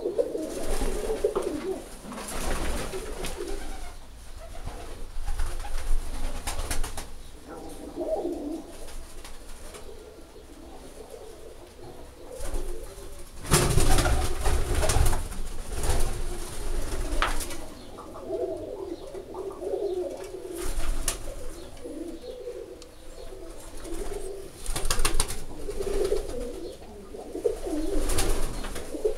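Domestic roller pigeons cooing over and over, a low wavering call. Several loud rustling knocks break in, the loudest cluster about halfway through.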